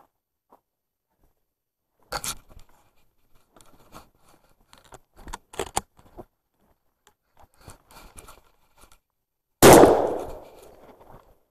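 A single loud gunshot near the end, with its echo dying away over about a second and a half. Before it comes scattered rustling and crunching of steps through dry brush and fallen leaves.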